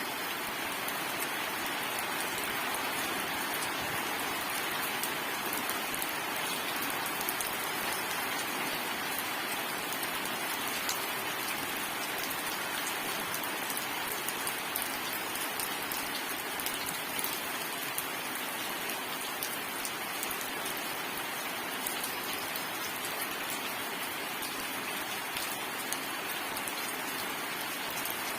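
Steady, heavy rain falling and pattering on surfaces, an even hiss with the tick of individual drops throughout.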